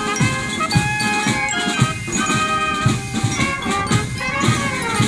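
Brass band playing: held melody notes over a steady drum beat of about two strokes a second.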